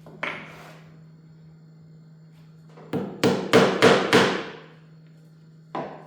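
Hammer blows: one strike, then a quick run of five strikes about three a second, then a single strike near the end.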